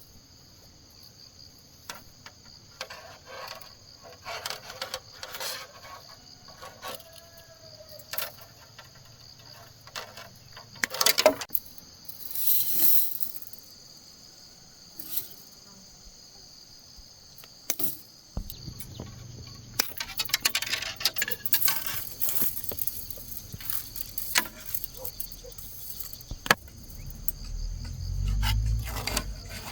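Insects shrilling steadily in the background, with scattered knocks and clatters. A low hum joins about two-thirds of the way through.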